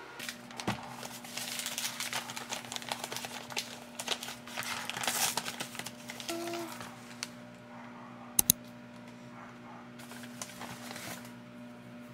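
Brown paper bag crinkling and rustling as it is handled and opened, for about the first seven seconds, followed about two-thirds through by two sharp clicks close together, the loudest sounds, and a little more rustling later.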